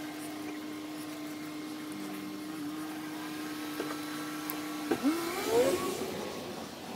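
A motor running with a steady hum, then a sharp knock about five seconds in followed by a rising whine as it speeds up.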